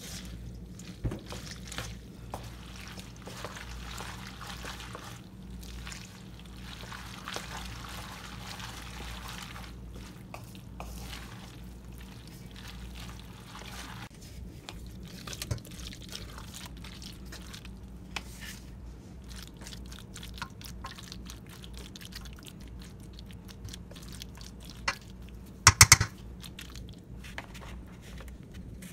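Kitchen prep sounds: a spoon stirring shredded cheese and butter in a stainless steel mixing bowl, then liquid pouring and dripping, with scattered clicks and a quick run of sharp metal clinks near the end, the loudest sound. A low steady hum runs underneath.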